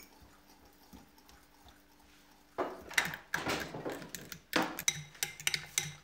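Thin yeast batter being beaten with a metal utensil in a glass bowl: the utensil clinks and scrapes rapidly against the glass. Faint and soft for the first couple of seconds, then loud from about two and a half seconds in.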